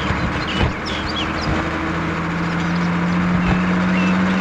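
A Leyland bus's engine running with a steady drone as it drives along a dirt road, with short bird chirps over it.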